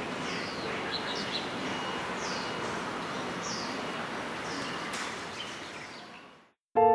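Outdoor ambience: a steady wash of background noise with birds calling in short, falling chirps, about once a second. It fades out near the end, and piano music comes in just as it stops.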